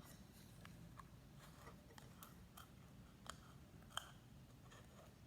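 Faint handling sounds: small clicks and rustles of plastic K-cups and yarn as string is pulled through the hole in a cup's bottom. There are a dozen or so soft irregular clicks, and the sharpest comes about four seconds in.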